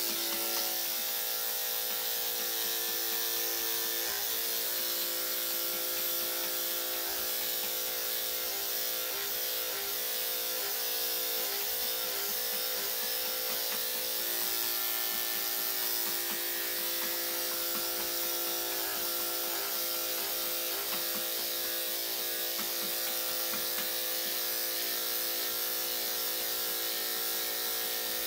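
Corded electric dog-grooming clippers with a number 7 blade running steadily while trimming a small dog's coat. The steady hum wavers briefly in pitch several times in the middle.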